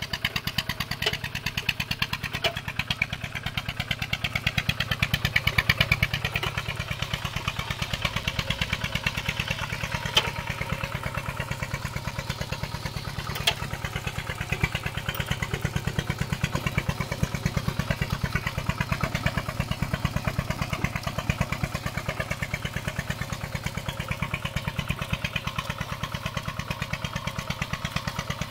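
Single-cylinder diesel engine of a walk-behind two-wheel tractor running steadily under load with a rapid, even exhaust beat while the tractor works a flooded paddy. There are two sharp metallic clanks midway through.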